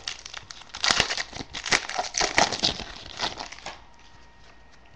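Foil wrapper of a 2011 Topps Prime football card pack crinkling as it is pulled off the cards: irregular crackling for about three seconds that stops about a second before the end.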